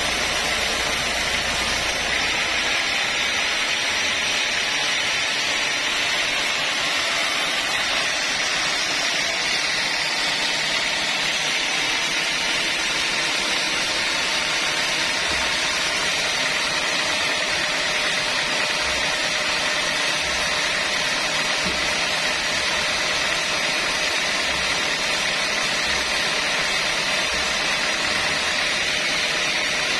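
Band sawmill running steadily, with the saw's hiss and whine carrying on throughout; a low rumble drops away about two seconds in.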